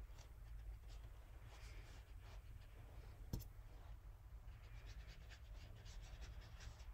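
Faint scratchy strokes of a watercolor brush on paper, with one sharp click about three and a half seconds in.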